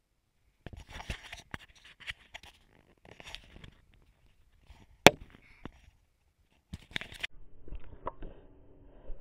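Handling noises around a car being packed: rustling and scattered clicks, with one sharp, loud clack about five seconds in, like a car door or latch shutting. A low steady hum with a few held tones comes in near the end.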